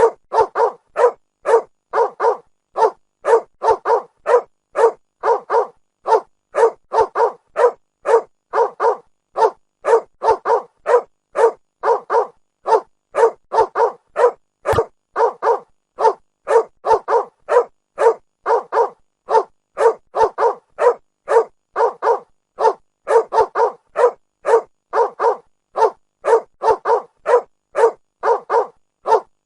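A dog barking over and over in a steady rhythm, about two barks a second without a pause.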